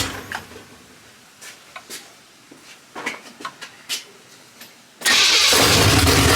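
1979 Chevrolet C10 pickup's engine on open headers running, then shutting off; a few light clicks in the quiet, then about five seconds in it fires and runs loud again.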